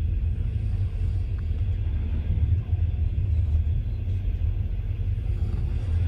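Steady low rumble of a Chinese overnight sleeper train running, heard from inside the soft-sleeper compartment.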